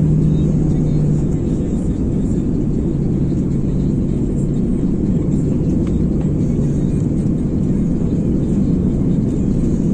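Airbus A330 cabin noise on short final, just before touchdown: a steady roar of airflow and the engines, with a low engine hum that fades and returns.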